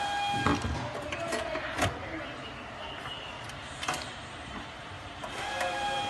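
A few sharp knocks and clicks of a screwdriver and hands working on a metal compressor case on a tabletop. A steady high whine in the background stops about half a second in and comes back near the end.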